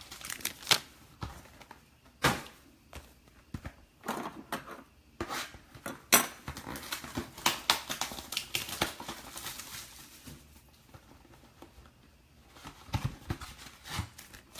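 Irregular clicks, taps and rustling of things being handled by hand, with a few sharper knocks.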